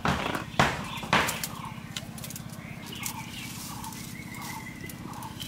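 Thin dry sticks snapped by hand for stove fuel, three sharp cracks within the first second and a half. After them, birds chirp over a steady low hum.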